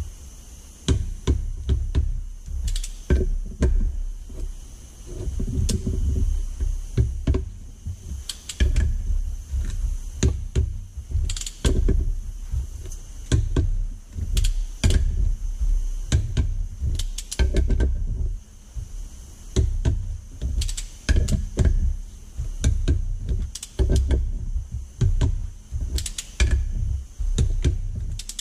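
Socket wrench ratchet clicking in short, irregular runs as the oil pump bolts are run down and torqued on a Detroit Diesel 3-53 front cover, with knocks and clinks of metal tools and sockets being handled.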